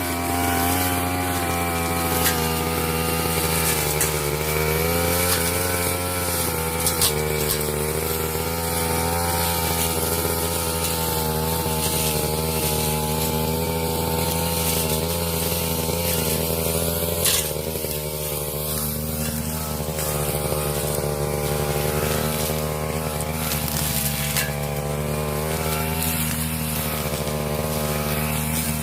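Brush cutter engine running steadily at cutting speed, its pitch wavering slightly as the propeller-style blade cuts through cogon grass. A few sharp ticks stand out, about a third, two thirds and most of the way through.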